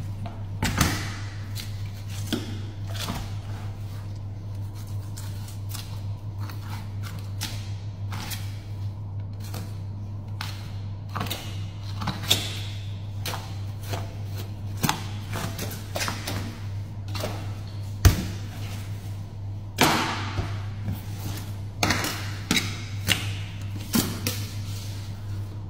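Knife filleting a barramundi on a cutting board: irregular scraping, crunching and knocking as the blade works through the scaled skin and along the bones, with a sharp knock about 18 seconds in. A steady low hum runs underneath.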